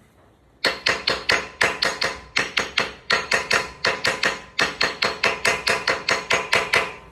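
Hammer striking metal in a rapid, even run of about four to five blows a second, each with a short metallic ring, starting just under a second in: the wheel bearing lock nut of a Nissan GQ Patrol hub being driven round by hammer blows instead of a proper hub-nut socket.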